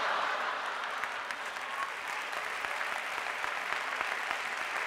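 Theatre audience applauding, many hands clapping in a dense patter that swells in at the start and then holds steady.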